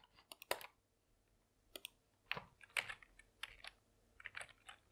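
Faint keystrokes on a computer keyboard: a dozen or so irregular clicks as a shell command is typed.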